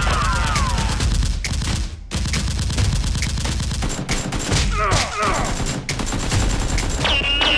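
Rapid automatic gunfire sound effects, a dense stream of shots with a short break about two seconds in. A few sweeping whines cut through near the start and again about five seconds in.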